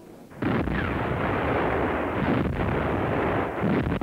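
Field artillery firing: a sudden loud blast about half a second in, then a dense, continuous din of gunfire with a few brief dips.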